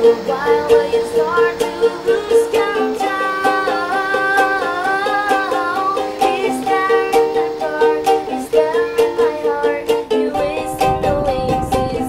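Background music: a plucked-string tune with a wavering melody over sustained notes and a steady beat.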